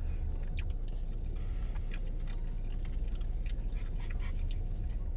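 Someone taking a bite of mac and cheese and chewing: faint, irregular small clicks over a steady low rumble.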